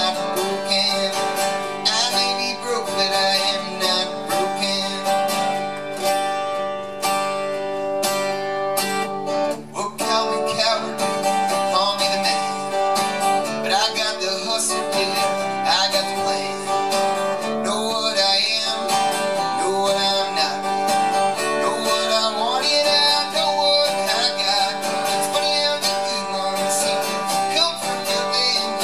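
Solo acoustic performance: a strummed acoustic guitar with a man singing over it into a microphone.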